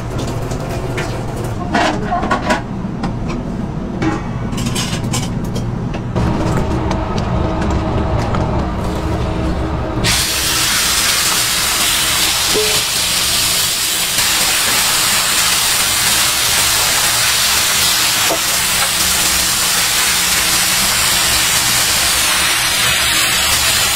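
Ground beef sizzling on a hot steel flat-top griddle, a loud, dense, steady hiss that starts abruptly about ten seconds in. Before it there is only a low hum with scattered light clicks.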